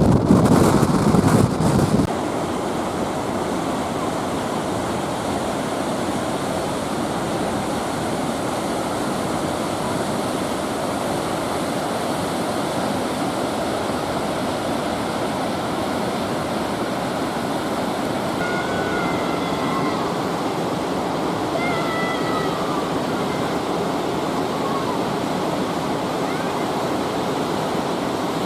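Salmon River water rushing past in a steady, even roar. For the first two seconds louder wind buffeting on the microphone drowns it, and it cuts off suddenly.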